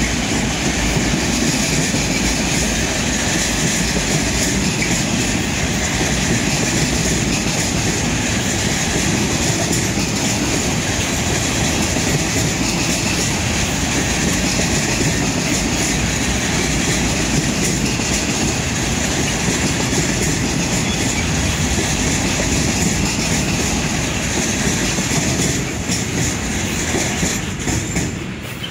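Freight train of grey bulk powder wagons rolling past at steady speed: a dense, steady rolling noise of wheels on rail with a high ringing over it. It falls away near the end as the last wagon passes.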